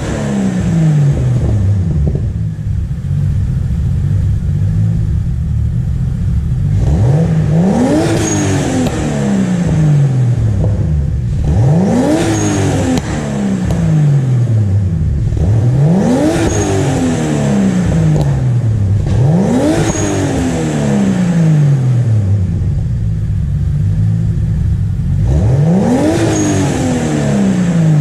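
Turbocharged BMW M52B28TU straight-six with a 3-inch open exhaust and Magnaflow muffler, idling and being blipped five times about every four seconds. Each rev rises quickly and falls back slowly to idle, with a short high chirp at the top of each rev.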